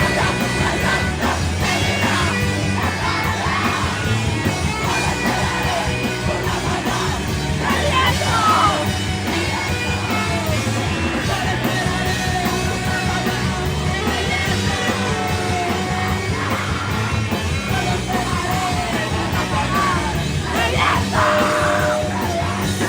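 Loud rock music with a steady beat and distorted guitars, and a voice singing and yelling over it.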